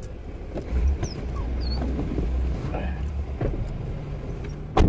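A car door slams shut near the end, the loudest sound, after which everything goes quieter. Before it there is a low steady rumble with a few faint high squeaks.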